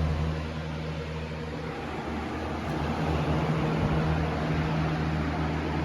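Galaxy 4733 box fan, fitted with a swapped-in Weather Shield motor, running: a steady motor hum under a rush of air. The hum fades briefly about two seconds in and then returns.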